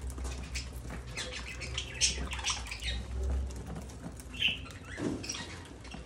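Flock of budgerigars feeding: quick chirps and chatter, wing flutters and many small sharp clicks of beaks and feet on seed and dish.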